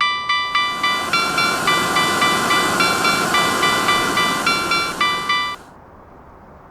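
Japanese railroad crossing bells ding about two and a half times a second, their pitches shifting like a tune, over the rushing noise of a passing train. Bells and train noise stop abruptly about five and a half seconds in, leaving only a faint hiss.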